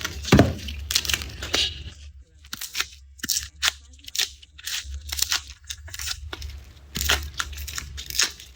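Dry garlic skins being peeled by hand, close up: irregular crisp crackles and papery tearing snaps, with a short lull a couple of seconds in.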